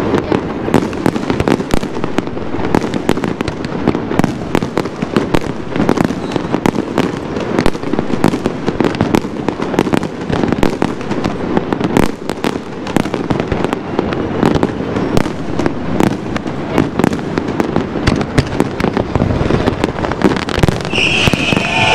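Fireworks display: aerial shells bursting in a rapid, unbroken barrage of bangs and crackles, many blasts overlapping.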